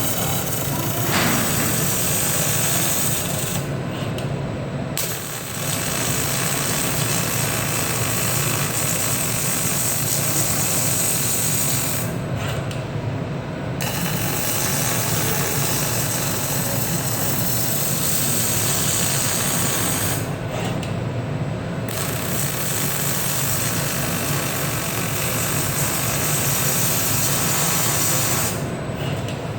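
Robotic arc welding: a steady, loud crackling arc that stops for about a second and a half roughly every eight seconds, between weld passes, over a steady low machine hum.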